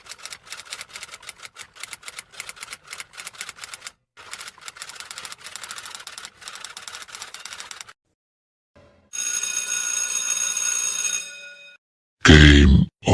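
A run of rapid typewriter keystrokes lasting about eight seconds, with a brief break midway. Then a bell rings steadily for about two and a half seconds, and a very loud low boom bursts in near the end.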